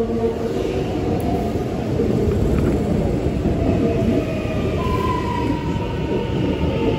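X'Trapolis 100 electric multiple unit running past along the platform: a steady rumble of wheels on rail, with a slowly falling whine.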